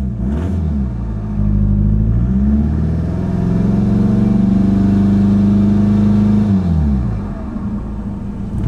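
Volkswagen Golf GTD's 2.0-litre turbo diesel revving up from idle, holding steady revs for about three seconds, then dropping back to idle, with the revs starting to rise again near the end. The engine is damaged: cylinders 1 and 4 read low pressure, and the owner suspects rod knock.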